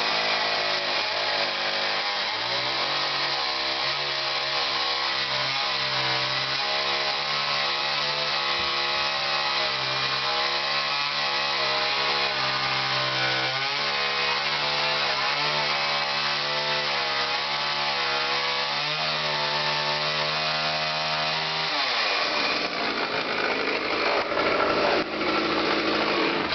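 Chainsaw running at full speed, cutting through a Christmas tree's wood, its pitch dipping slightly now and then under load. Near the end the pitch falls away and the sound turns to a rattling clatter with a few knocks.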